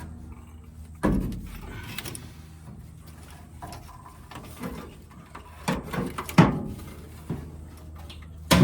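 Irregular metallic clunks, knocks and scrapes of parts and tools being handled under a truck during fuel pump removal, loudest about six and a half seconds in, over a steady low hum.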